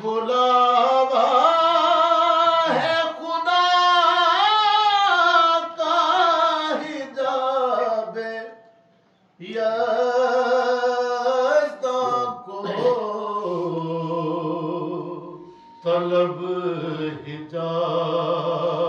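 A solo voice singing an Urdu devotional salam in long, wavering, drawn-out phrases. It breaks off briefly about nine seconds in and again near fifteen seconds.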